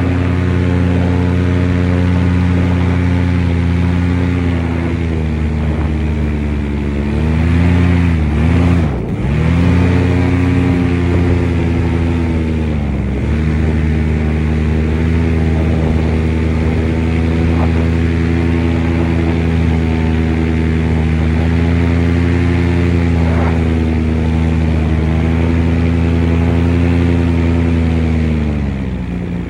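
A motor vehicle's engine running at a steady speed. Its pitch dips briefly and recovers twice, about eight and thirteen seconds in.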